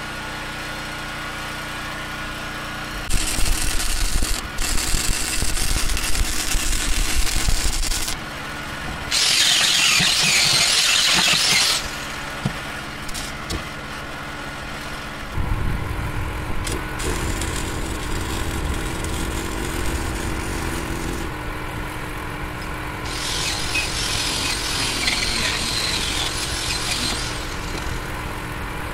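An engine running, with several spells of loud hissing noise a few seconds long.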